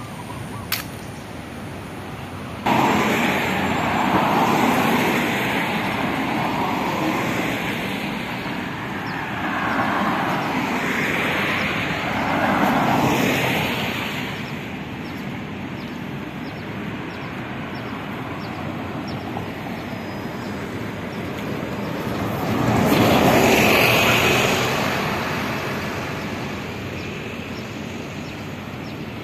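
Road traffic passing: vehicles go by one after another, each swelling and fading, the loudest about two-thirds of the way through. Before that, a few seconds of quieter ambience with one sharp click under a second in, then an abrupt jump to the louder traffic about three seconds in.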